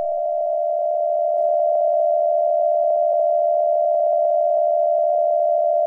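Electronic emergency-alert attention tone: a single loud, steady pitch held without a break, as a dial-tone-like hum.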